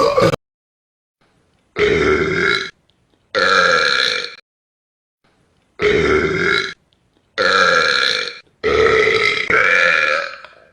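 A man belching loudly, about five long, drawn-out burps in a row, each lasting about a second with short silent pauses between them; the last one runs longer.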